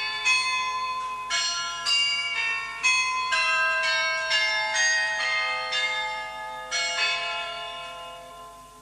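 Church bells ringing in a rapid sequence of overlapping strikes, about two a second, each note ringing on with bright overtones; the peal fades out near the end.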